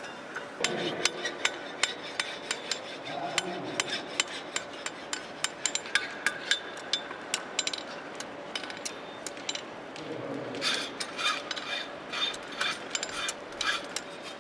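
Blacksmith's hammer striking hot steel on an anvil while forging tongs: a steady run of blows about three a second. From about ten seconds in, the strikes ring more.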